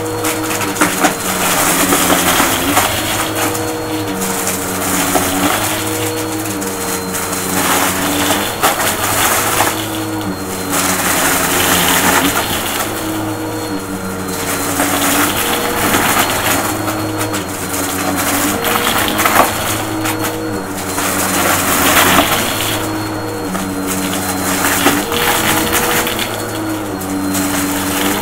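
Bissell upright vacuum running over a shag rug, sucking up deflated balloons, rubber bands and small plastic beads with a dense crackling, rattling crunch that swells and eases in waves, over the steady hum of the motor.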